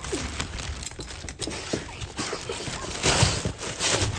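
Excited pet dog whining in short rising-and-falling whimpers, with panting and scuffling, as it greets its returning owners.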